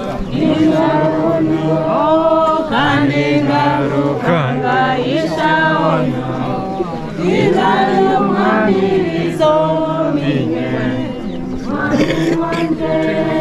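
A group of voices singing a hymn together in Luhya, with long held notes.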